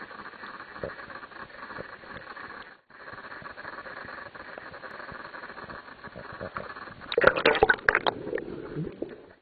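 Water sloshing and lapping against a waterproof camera held at the surface, with a spell of loud, choppy splashing and bubbling about seven seconds in as the camera dips underwater.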